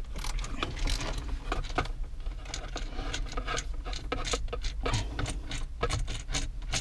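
Quick, irregular small clicks and ticks of a ratcheting Snap-on screwdriver being worked by hand, with loose screws coming off it, over a low steady hum.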